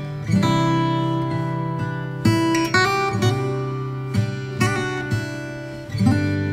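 Background music: an acoustic guitar strumming sustained chords, with a new strum every second or so.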